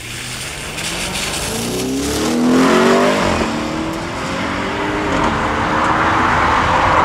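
Audi RS6 Performance's twin-turbo V8 with a titanium Akrapovic exhaust accelerating hard past and away, its note rising, dropping at an upshift and rising again. Tyres hiss on the wet road.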